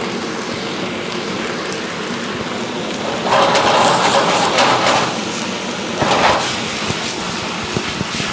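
Rice and soy sauce sizzling steadily in a hot wok, with two louder surges of sizzle about three and six seconds in.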